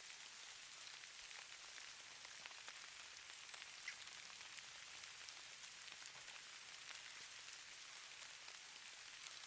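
Snow falling: a faint, steady hiss of many tiny ticks as flakes land.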